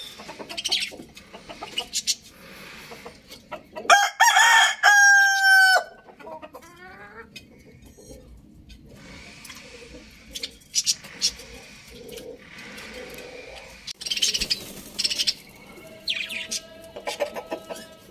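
Rooster crowing loudly about four seconds in, ending on a long held note, with chickens clucking and chirping around it. A second, lower crow begins near the end.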